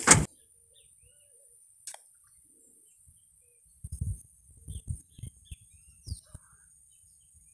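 Faint scattered bird chirps over a steady high-pitched background whine. A brief loud bump at the very start, a click about two seconds in, and a cluster of low thumps from about four to six seconds in.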